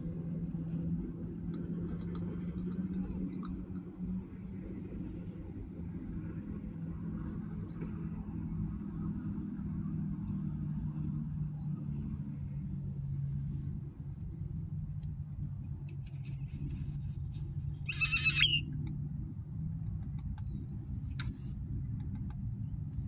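Steady low hum of an idling vehicle engine, dropping slightly in pitch about halfway through. Near the end one short, harsh bird call rings out above it.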